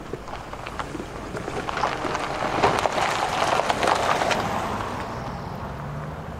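Wheels and rolling stock of VIA Rail's The Canadian, a passenger train of stainless-steel cars, running away on the rails. The rolling rumble is dotted with many sharp wheel clicks and swells to its loudest about three seconds in before easing off.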